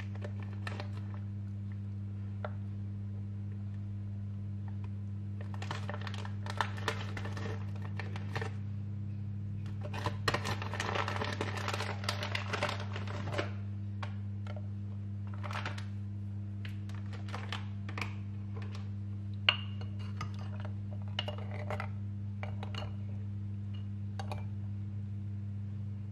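Lumps of honey rock sugar dropped into a pot of barley water: splashes, plops and clinks against the pot, busiest around the middle, with one sharp ringing clink later on. A steady low hum sits underneath.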